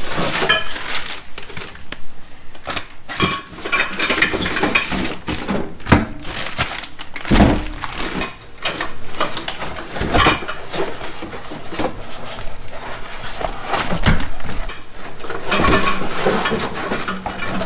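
Plastic oil jugs and containers clattering and knocking as a gloved hand shifts them about on a low shelf and pulls out a part in a plastic bag, in an irregular run of knocks and rustles.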